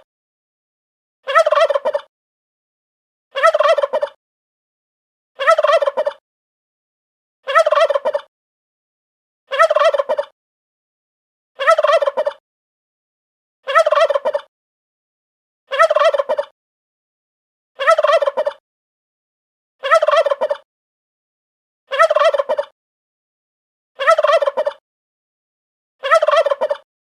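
A turkey gobbling: one short rattling gobble, under a second long, repeated alike about every two seconds, with silence between.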